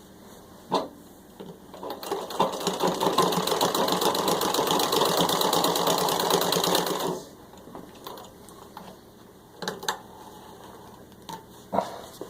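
Antique Singer 15-30 treadle sewing machine stitching through six layers of denim at full speed for about five seconds, as a rapid, even chatter of needle strokes that stops abruptly. A few single clicks and knocks of the machine being handled come before and after it.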